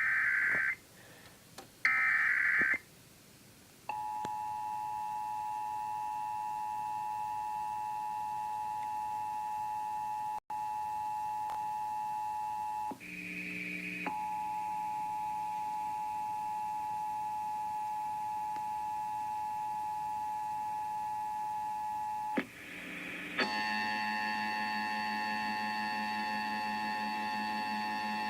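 Emergency Alert System broadcast signalling: short screeching bursts of the digital data header, then the two-tone attention signal (853 and 960 Hz sounded together) held as a steady tone, with a brief break about 13 seconds in. From about 23 seconds it changes to a harsher, buzzier tone.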